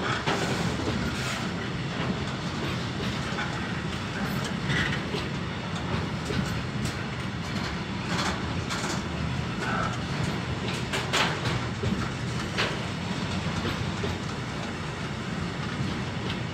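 Container flat wagons of a freight train rolling past close by: a steady rumble of wheels on rail, with scattered sharp metallic clicks, several close together about halfway through.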